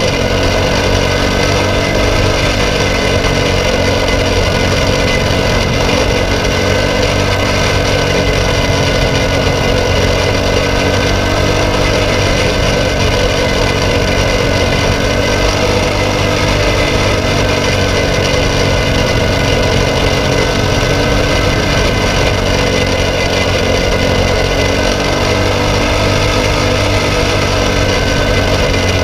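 Briggs & Stratton LO206 single-cylinder four-stroke kart engine running at racing speed, heard up close from on board the kart, loud and steady with its pitch rising and dipping slightly through the corners.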